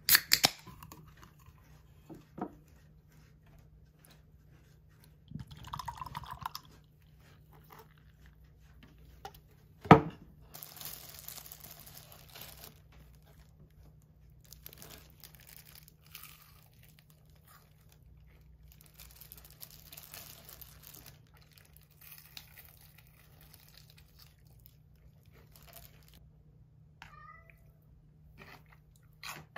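A drink can is cracked open with a sharp pop about ten seconds in, the loudest moment, followed by a couple of seconds of fizzing beer poured into a glass. Later comes crunchy chewing of fried chicken in several spells, and near the end a cat gives a brief meow.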